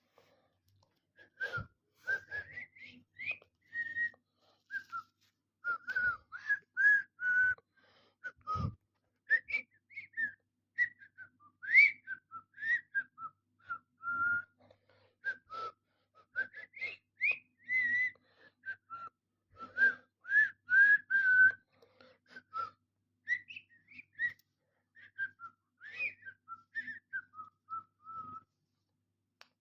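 A person whistling a tune: a long string of short, clear notes that glide up and down, with brief pauses between phrases. A few soft bumps sound under it, about 1.5, 6 and 8.5 seconds in.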